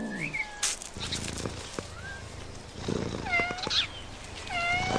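Domestic cat meowing twice, two drawn-out calls about a second apart, the first about three seconds in, each dropping in pitch and then holding.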